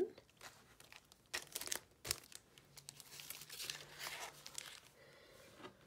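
Faint rustling and crinkling of a printed paper card and packaging being handled and set down on a table, with a few light ticks about a second and a half in.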